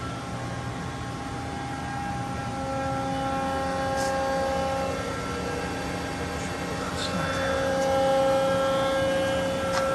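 Running machinery in a machine shop: a steady hum with several steady whining tones that come and go, broken by a few sharp clicks.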